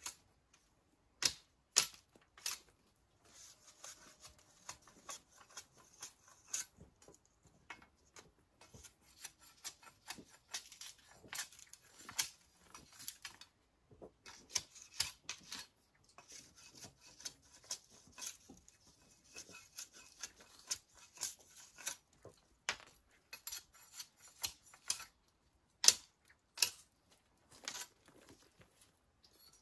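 Machete blade knocking and scraping along a long bamboo pole as it is trimmed: irregular sharp clicks and short scrapes, with a few louder cracks.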